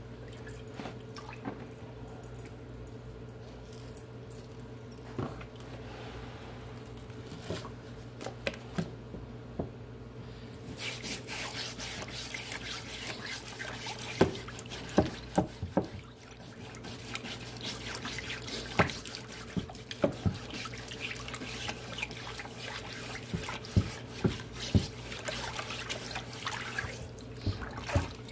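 Water running from a tap onto a Lichtenberg-burned wooden board while it is scrubbed with a stiff brush to wash off the char, with the board and brush knocking against a plastic tub. The running water starts about ten seconds in; before that there are only scattered handling knocks over a steady low hum.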